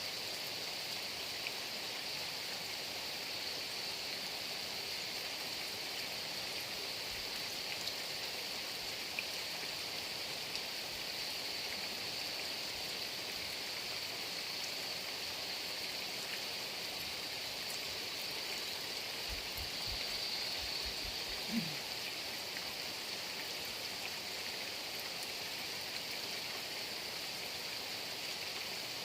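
Heavy rain falling steadily, an even dense hiss. About two-thirds of the way through come a few low thuds and a short falling low tone.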